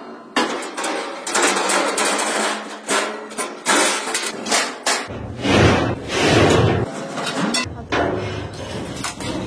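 Irregular hammer blows and knocks in a truck workshop, with a louder, deeper noise from about five to seven seconds in.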